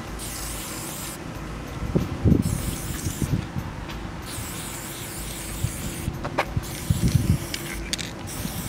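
Aerosol spray-paint can (Cobra, with a stock medium cap) spraying in several bursts of hiss with short pauses between them. A few low thumps come about two seconds in and again near seven seconds.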